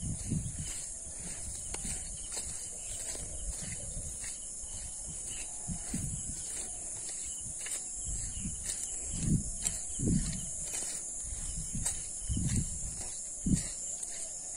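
A steady high-pitched insect chorus, with irregular low dull thuds of footsteps on a wet, muddy dirt road about once a second, a few louder ones in the second half.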